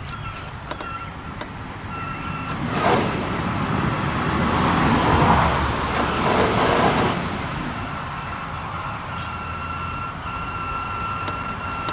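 Heater blower motor of a 1985 Chevy K10 running, with a thin high squeak that comes and goes over a steady hum: a worn blower that will probably have to be changed out. A louder rushing noise swells for a few seconds in the middle.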